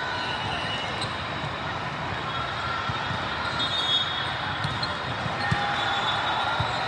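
Volleyball gym din: balls thudding on hands and floor, with short high squeaks over a steady background murmur.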